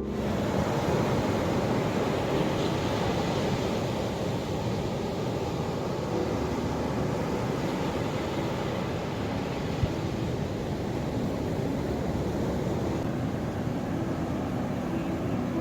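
Ocean surf: a steady, even rush of waves washing in, without breaks or sharp crashes.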